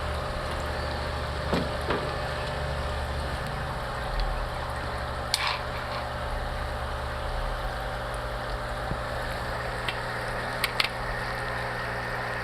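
Steady hiss of water moving through a running aquaponics system, over a low pump hum, with a few light clicks and knocks.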